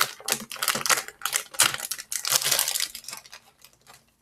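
Plastic candy bag of Sour Patch Kids crinkling as it is opened and handled, a dense crackle for about three seconds that then thins out.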